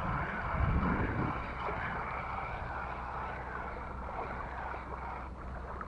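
Water sloshing around an angler wading in shallow sea water, with wind rumbling on the microphone, gustier in the first second.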